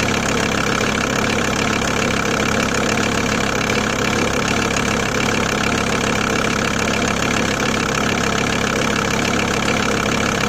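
Volkswagen T4's 2.5 TDI five-cylinder diesel (AJT engine) idling steadily with diesel knock. The owner says it has developed an intermittent rattle, a 'rattling/mulching' sound, that is loudest cold at idle and that he places at the top end of the engine, with the cause unknown.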